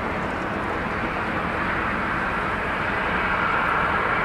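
Boeing 767-300ER airliner on final approach, its jet engines running with a rushing noise and a whine that grow steadily louder as it comes closer.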